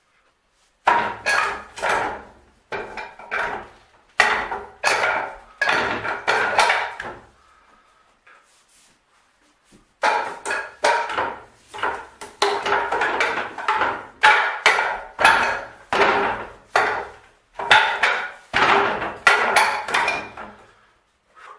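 Wooden Wing Chun dummy (muk yan chong) being struck in quick runs of sharp wooden knocks, about three a second, with a pause of a couple of seconds about a third of the way through.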